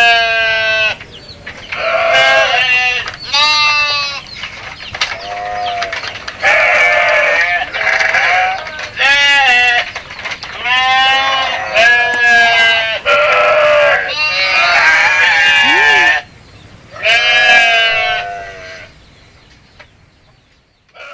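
Goats bleating over and over: about a dozen loud, quavering bleats in quick succession, some long and drawn out. They stop near the end.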